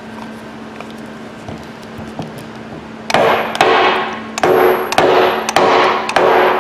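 The metal housing of an air impact wrench is knocked hard about six times, roughly half a second apart, starting about three seconds in, with a brief metallic ring after each blow. The knocks drive a tight-fitting part out, which starts to come free along with its bearing.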